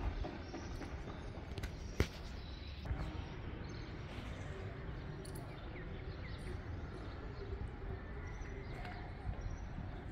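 Outdoor neighbourhood ambience: a steady low background rumble with faint bird chirps, and a single sharp click about two seconds in.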